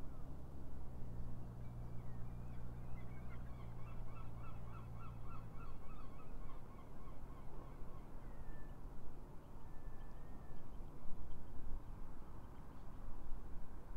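Birds calling in a quick run of repeated calls for a few seconds, with a few single calls later, over wind noise on the microphone. A low steady engine hum stops about halfway through.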